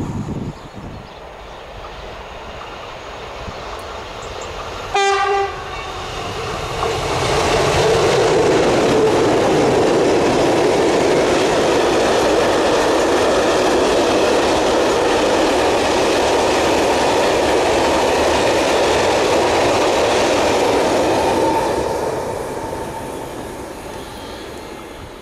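A railway horn gives one short, loud blast about five seconds in. A freight train of ballast hopper wagons then passes close by: the running noise of its wheels on the rails builds, holds steady, and fades away near the end.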